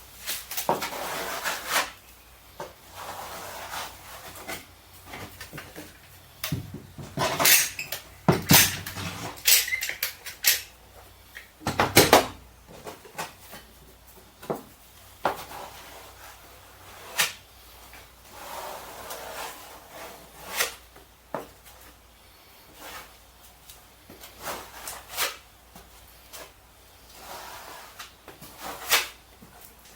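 Irregular knocks, clunks and short scraping sounds of wooden cabinet parts being handled and fitted in a small enclosed space, loudest in a cluster of knocks a third of the way through.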